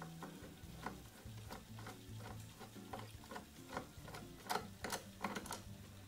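A screwdriver working the screws of a small plastic terminal block inside a plastic control box, making a string of small, irregular clicks and taps, about two a second.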